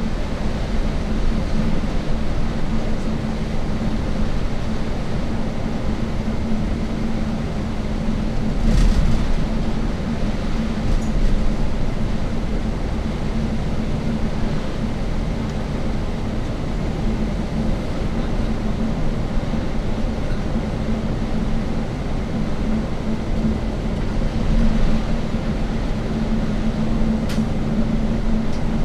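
Steady low rumble of a moving vehicle heard from inside the cabin, with a constant hum throughout. A heavier bump comes about nine seconds in and a short sharp click near the end.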